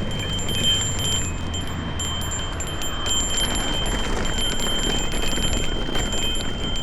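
Orbea Wild electric mountain bike riding over a dirt trail: a steady rumble of tyres and wind on the microphone, with many small clicks and rattles from the bike. A thin high-pitched whine holds steady throughout.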